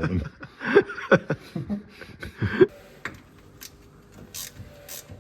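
Short vocal noises, like laughing, for the first two and a half seconds, then a ratchet wrench being worked in short strokes from about three and a half seconds in, undoing the fixings of a VW bus engine.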